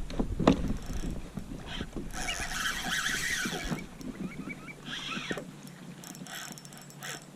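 Scattered knocks and clicks from a plastic fishing kayak and its rod and tackle while a fish is fought, with a low wind rumble and a rushing hiss lasting about a second and a half, starting about two seconds in.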